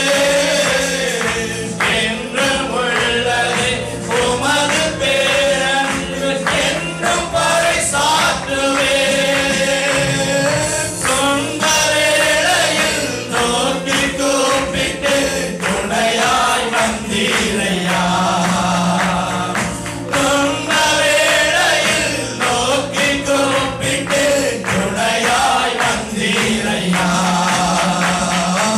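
Christian worship song: men singing into microphones together with the congregation, over electronic keyboard accompaniment and a steady beat.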